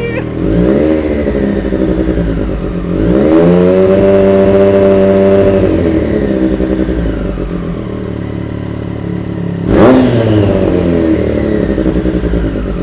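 2022 Triumph Street Triple RS's three-cylinder engine revved at standstill through a freshly fitted steel cutback exhaust: a short rev about half a second in, a longer rev held at higher revs for about two seconds from about three seconds in, then a sharp throttle blip near ten seconds, settling back to idle between revs.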